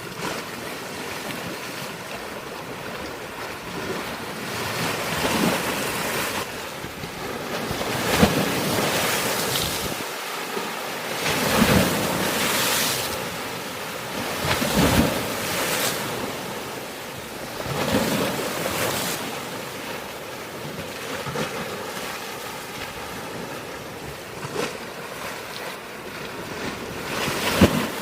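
Sea waves breaking on a rocky shore: a constant wash of surf with waves crashing in every few seconds.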